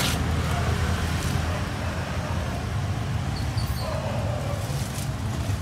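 A steady low hum and rumble of background noise, with a few faint clicks and taps over it.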